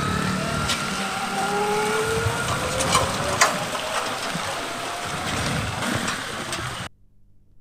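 Close street traffic: motorcycle, auto-rickshaw and car engines pulling through, their engine notes rising slowly, with a few sharp knocks. The sound cuts off abruptly near the end.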